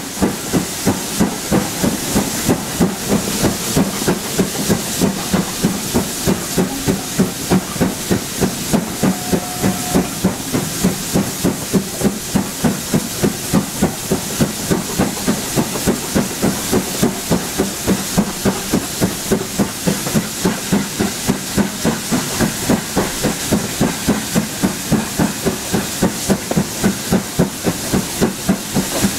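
Exhaust beats of BR Standard Class 7 Britannia Pacific 70013, a two-cylinder 4-6-2 steam locomotive, heard from the train behind it as it works steadily along, in an even rhythm of a little over two beats a second with steam hiss.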